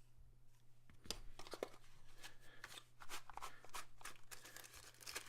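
Plastic packaging being handled and crinkled, a loose run of small crackles and clicks starting about a second in.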